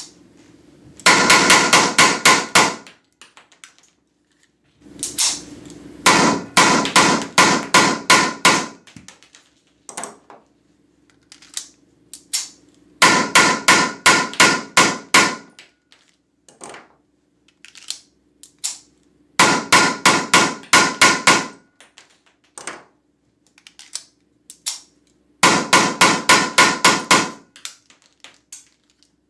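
Weihrauch HW94 blank-firing pistol shooting Umarex PTS 9 mm P.A.K. blanks, with its muzzle held in the opening of a wrapped box. It fires five rapid strings of shots at about five a second, each string lasting two to three seconds, with single clicks of handling and reloading between the strings.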